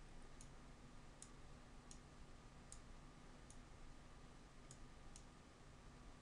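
Faint clicks of a computer mouse button, about one a second and slightly irregular, over a faint steady hum; otherwise near silence.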